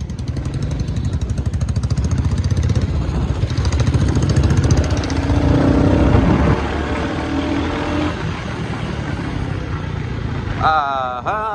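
Royal Enfield Classic 350's single-cylinder engine thumping while under way, with wind noise over the microphone. The engine note builds over the first six seconds, then eases off.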